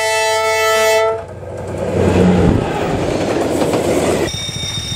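Diesel locomotive's two-note horn sounding a held blast that ends about a second in, then the rumble and rapid clatter of passenger coach wheels passing close by on the rails. The sound cuts off abruptly near the end.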